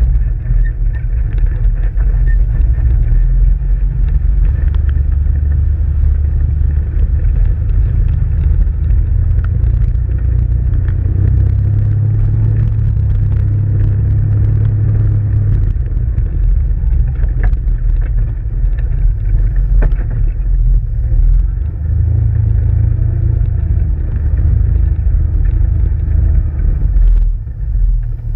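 Off-road vehicle's engine running steadily over a gravel track, a low rumble whose pitch rises a little in a couple of stretches, with scattered small clicks and knocks.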